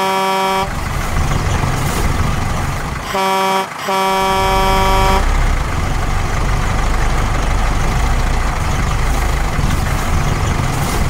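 Old bus's horn honking three times over the steady low running of its engine: a short blast at the start, a brief one about three seconds in, and a longer blast just after it.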